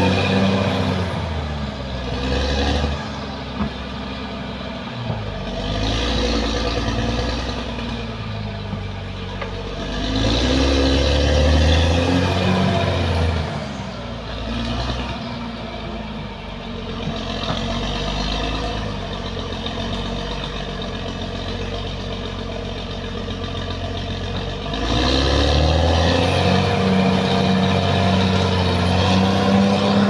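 Caterpillar D6R XL bulldozer's diesel engine working under load as it pushes soil with its blade. Its pitch and loudness rise and fall with the load, swelling near the start, again in the middle and for the last few seconds.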